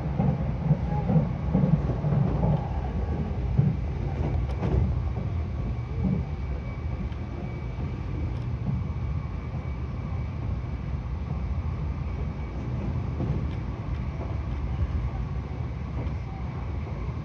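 Running noise inside the cabin of a Nankai 50000 series Rapi:t limited express travelling at speed: a steady low rumble, a little louder and rougher in the first few seconds.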